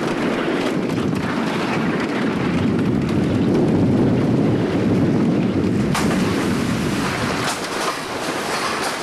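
Wooden roller coaster train rumbling along its wooden track, with wind buffeting the microphone. About six seconds in comes a sharp clank, then lighter clattering as the train slows into the station.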